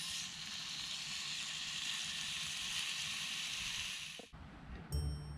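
Steak sizzling in a small cast-iron skillet over a campfire: a steady hiss that cuts off about four seconds in. Music begins near the end.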